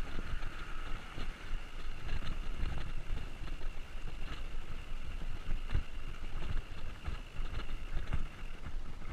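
Bicycle rattling and rumbling over a cobblestone street, with many small irregular jolts and knocks as the wheels hit the stones.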